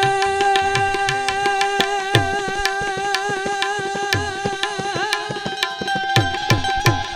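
Harmonium holding a steady note that moves to a new note about five seconds in, over a brisk tabla rhythm with deep bass strokes that slide down in pitch.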